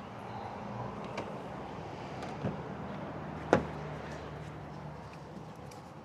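A steady low hum with a few light clicks and knocks and one sharper click about halfway through, the sounds of someone moving about a parked car to plug it in.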